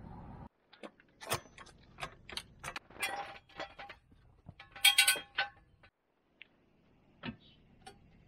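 Irregular metallic clicks and clinks, several ringing briefly, typical of metal tools and parts being handled; the loudest clinks come about five seconds in. A low steady hum cuts off suddenly half a second in.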